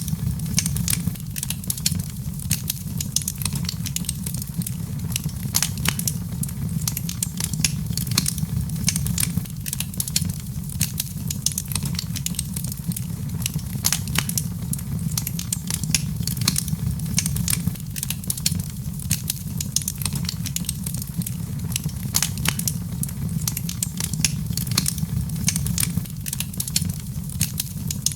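Wood fire in a fireplace crackling: many irregular sharp pops and snaps over a steady low rumble of the burning.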